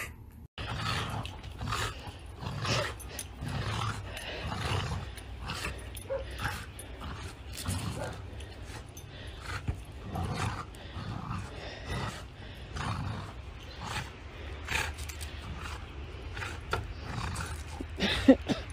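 A dog growling and grunting in short, irregular growls, with a low rumble underneath.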